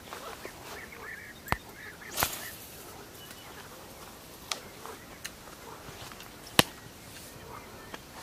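A few sharp clicks and knocks, the loudest about six and a half seconds in, with a short swish about two seconds in.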